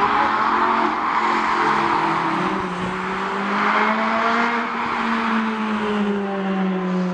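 Race car engines running on the track as cars go by, one steady note that climbs a little and then falls away in the second half.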